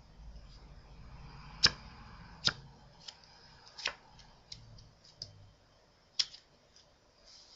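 A deck of playing cards being handled: soft rustling and about seven sharp, separate clicks and snaps of the cards, the loudest close to two seconds in.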